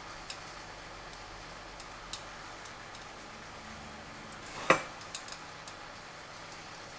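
Scattered light clicks and taps of fingers and nails against a pie dish as puff-pastry edges are rolled and pinched together by hand, with one sharper knock a little before five seconds in and a few small clicks right after.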